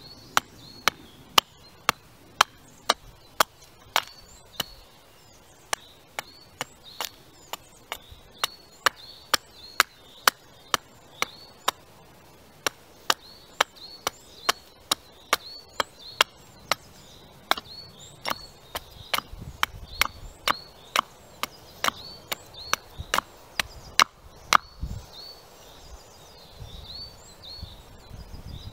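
Carving axe hewing a wooden spoon blank held upright on a stump, quick sharp chops about two a second that stop about 24 seconds in. A bird repeats a short high chirp in the background.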